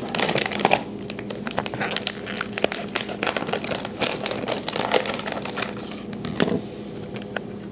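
Scissors cutting open a clear plastic bag packed with freeze-dried chicken treats, the plastic crinkling and crackling in a dense run of small clicks that dies down near the end.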